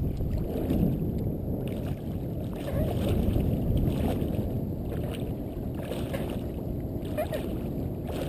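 Water lapping and sloshing against a float tube, with wind rumbling on the camera's microphone. A few brief splashes stand out every second or two.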